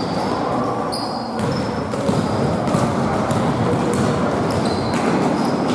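Basketball game in play: the ball bouncing on a hall floor as repeated sharp knocks, with short high squeaks over a steady din of court noise.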